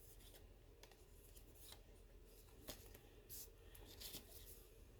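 Near silence with faint, scattered soft taps and rustles of paper and cardstock being handled and pressed down to set the glue.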